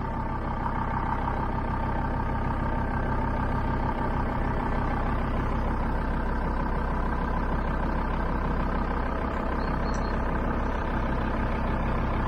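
A van's engine idling steadily, an even hum with no change in pitch.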